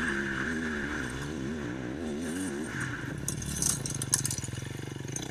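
Dirt bike engine running as the bike approaches, its pitch wavering up and down as the rider works the throttle. From about three seconds in there is a clatter of gravel and dirt sprayed by the rear tyre as the bike slides into the turn.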